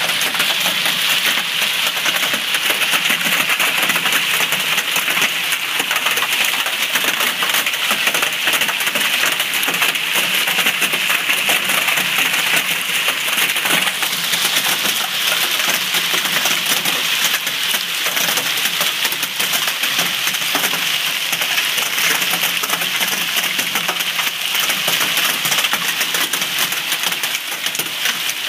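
Hail and rain falling onto a wet asphalt driveway: a steady, dense clatter of many small hailstones striking the pavement.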